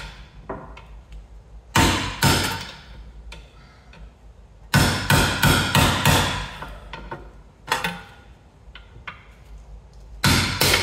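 Hammer blows on a flat bar set against the metal dust cap of an Alfa Romeo Giulietta's rear wheel hub, knocking the cap out. The sharp metallic strikes come in groups: two about two seconds in, a quick run of about six around five to six seconds, and two more near the end.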